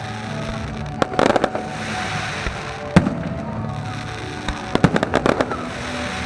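Aerial fireworks shells bursting: a sharp bang about a second in followed by a quick run of crackling reports, a single loud bang about three seconds in, and another cluster of crackling bursts near the five-second mark, with music playing underneath.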